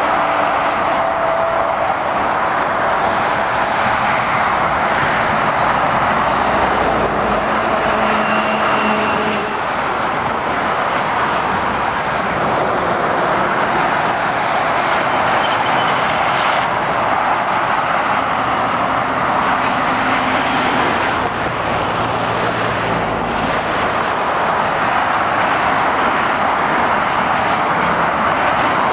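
Steady motorway traffic noise: lorries and cars passing below, a constant tyre roar with the low hum of diesel truck engines coming and going.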